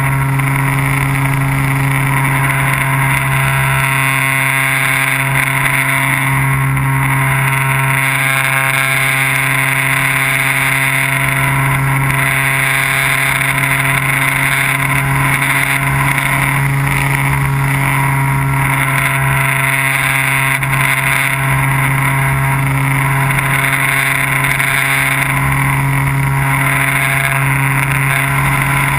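Small unmanned aircraft's motor and propeller running steadily at a near-constant pitch, heard loud and close from the camera carried on board.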